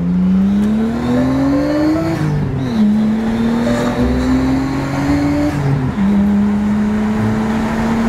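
A car engine accelerating through the gears: its pitch climbs, drops at an upshift about two and a half seconds in, climbs again and drops at a second shift about six seconds in, then holds steady.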